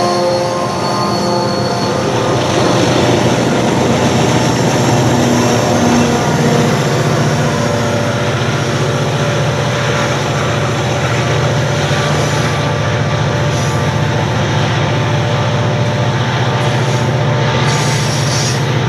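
A multi-unit diesel freight train passing close by, its locomotives working hard under load, including the streamliner CLP12. The steady engine drone gives way to the rumble of loaded hopper wagons rolling past, with some wheel squeal toward the end.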